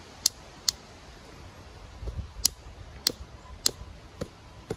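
Sharp clicks of a copper flaking tool on the edge of a chert end scraper as it is thinned: two clicks, a pause of over a second, then four more about half a second apart, with some handling rumble.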